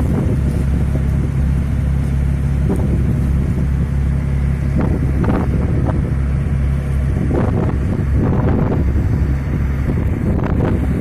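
A motor running with a steady low hum, with a few brief louder noises over it partway through.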